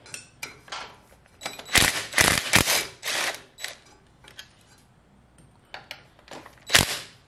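A cordless drill/driver run in short bursts on a bolt of a tiller's steel tine housing, mixed with metal clicks and clanks as the housing is handled. The loudest bursts come about two to three seconds in and again near the end.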